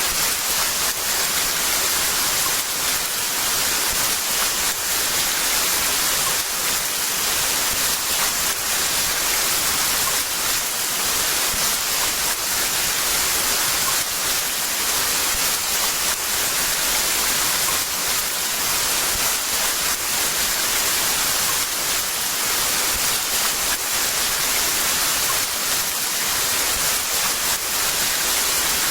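Heavy rain falling, a dense, steady hiss with no let-up.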